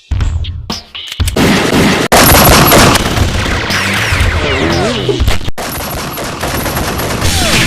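Sustained rapid gunfire sound effects, dense and loud, with whizzing, gliding pitch sweeps running through them. The burst breaks off for an instant about two seconds in and again past the five-second mark.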